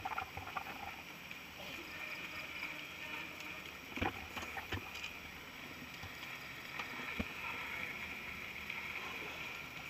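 Mountain bike being pushed and handled on a dirt trail: scattered knocks and rattles, the sharpest about four seconds in, over a steady outdoor hiss.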